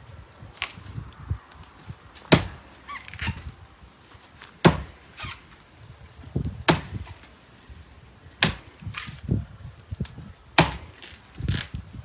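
Axe chopping into the trunk of a coconut palm: five sharp strikes about two seconds apart, with fainter knocks in between.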